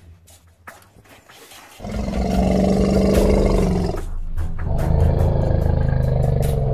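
A large animal roaring twice: two long, deep roars of about two seconds each, the first starting nearly two seconds in and the second just after the middle.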